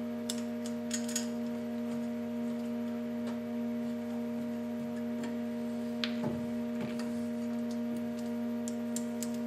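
Steady machine hum from the lathe, with scattered light metallic clicks and a duller knock about six seconds in as a Multifix quick-change tool holder is handled and clamped on the tool post.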